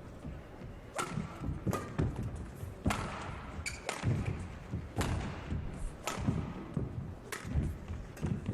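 Badminton rally: sharp cracks of racket strings striking the shuttlecock, about six hits roughly a second apart, with low thuds of players' footwork on the court.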